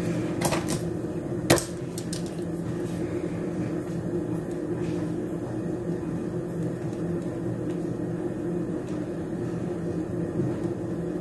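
Steady low machine hum, with one sharp click about a second and a half in.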